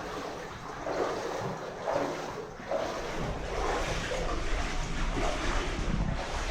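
Footsteps wading through muddy water, an irregular sloshing and swishing.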